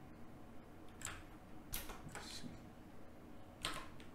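Four faint computer keyboard keystrokes, scattered about a second apart over low room tone.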